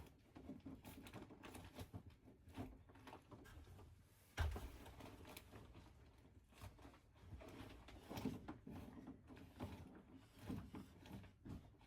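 Faint scattered rustling and light knocks of hands at work, with one sharper thump about four and a half seconds in.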